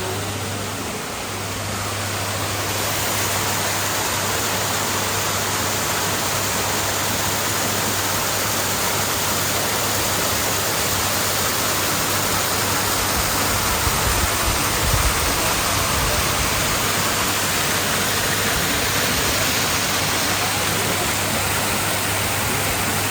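Steady rush of water from a waterfall, a constant even hiss. A brief low rumble comes about two-thirds of the way through.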